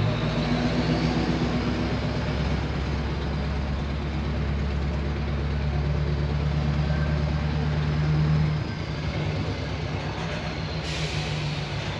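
Heavy diesel engine running steadily at low speed; about eight and a half seconds in the engine note eases off and drops in level. Near the end comes a short hiss of air.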